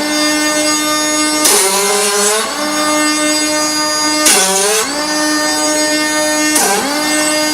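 Deprag pneumatic grinder running with a steady high whine. Three times it drops in pitch with a burst of grinding hiss as it bears down on the molded plastic part, slowing under the load of deburring the sharp edges, then winds back up.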